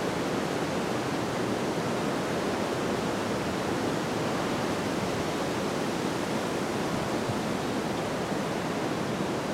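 Steady, even rushing noise that does not change throughout, with no distinct events.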